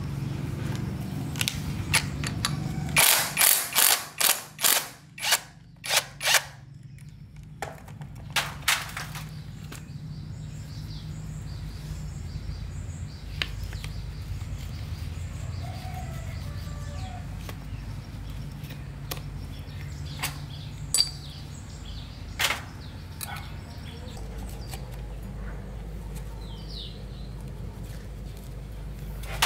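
Mechanical clicking from work on metal parts: a quick run of about ten sharp clicks a few seconds in, a couple more shortly after, then scattered single clicks, over a steady low hum.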